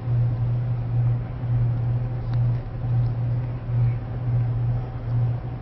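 A low steady hum that swells and fades about every two-thirds of a second.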